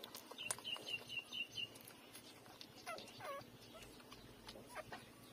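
Newborn puppies squeaking and whimpering while they nurse: a quick run of short high squeaks in the first two seconds, then two longer wavering whines about three seconds in, with a few sharp clicks.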